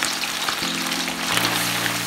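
Chicken frying in hot oil in a wok, a steady sizzle full of small crackles and pops. Background music with low held notes plays along, changing chord about halfway through.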